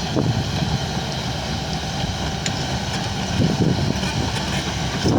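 Excavator's diesel engine running steadily as the machine passes.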